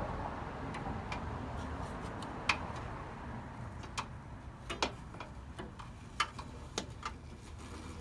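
Scattered sharp plastic clicks and taps, about a dozen at irregular intervals, as a Sealight 9006 LED headlight bulb's wiring plug and driver box are handled and pushed into place behind the headlight, over a low steady rumble.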